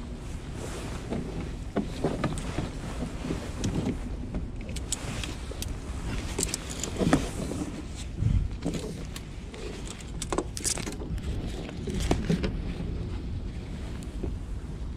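Hands handling a tautog and fishing gear in a kayak: rain-gear rustling and a scatter of light clicks and clinks, a few sharper ones in the middle, over a steady low rumble of wind on the microphone.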